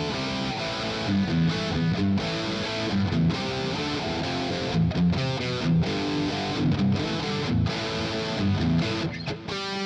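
Scorpion LP610 Les Paul-style electric guitar being played: chords and single-note lines, with frequent short stops between phrases.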